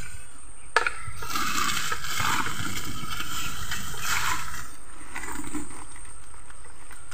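Rustling and crinkling of a large sack being lifted and slung over the shoulder, with a sharp knock about a second in; the rustling is densest in the first half and eases off later.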